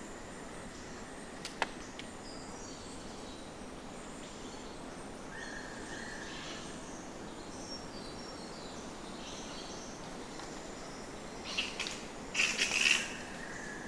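Bats squeaking: faint short high-pitched chirps over a steady hiss, with a louder flurry of squeaks near the end. A single sharp click comes about a second and a half in.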